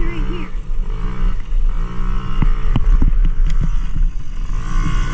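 Dirt bike engine running and revving while riding, its pitch rising and falling several times, with sharp knocks and rattles from the bike going over rough ground.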